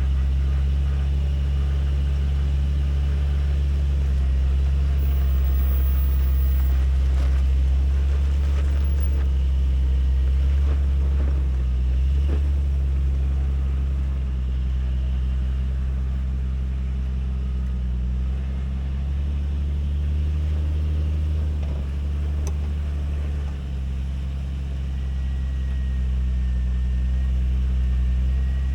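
Jeep engine running at low revs on a rough dirt trail, a steady deep drone that shifts a little in pitch, with a few faint knocks.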